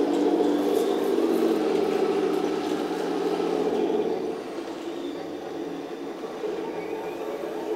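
Heng Long Tiger I radio-controlled model tank running as it drives: a steady mechanical drone from the model's drive and tracks, dropping a little in level about four seconds in.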